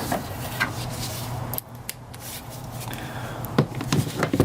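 Hands working with tools and intake parts: scattered light clicks, rubbing and knocks, with a cluster of louder knocks near the end, over a low steady hum.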